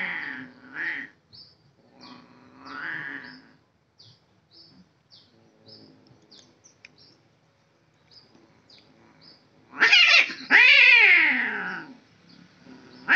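Two male domestic cats in a territorial standoff, yowling and growling at each other: a short yowl at the start, another a couple of seconds in, then a loud, long caterwaul near the end that slides down in pitch. Faint short high chirps repeat in the quieter middle stretch.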